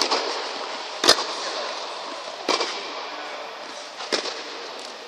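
Tennis rally: sharp pops of the ball off rackets and court, about every second and a half, each ringing on briefly in the hall.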